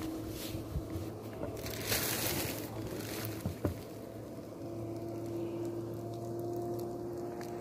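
Sausage frying in a small pan on a gas camping stove: a steady hiss from the burner and the pan, with a louder burst of hiss about two seconds in. Two quick clicks about three and a half seconds in as a spatula works the sausage in the pan.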